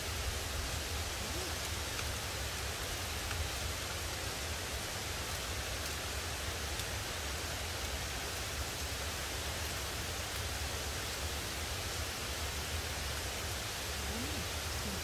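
Steady rain falling on the tarp overhead and the campsite around it: an even, unbroken hiss with a low rumble beneath.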